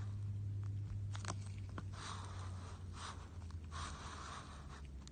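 Electric opal-grinding wheel humming steadily, with short scraping bursts as a piece of opal rough is pressed against it about once a second, and a few sharp clicks of stone on the wheel.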